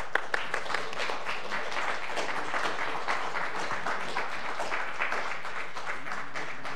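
A congregation applauding: a few separate claps at first, then steady applause that fades out near the end.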